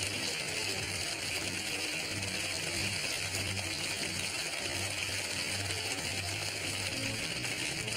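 Steady hiss with a low hum that swells and fades every second or so.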